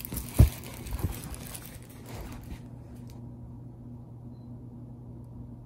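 Rustling of a large diamond painting canvas and its plastic cover film as it is handled, with a thump about half a second in and a smaller one about a second in. The handling stops after about two and a half seconds, leaving a low steady hum.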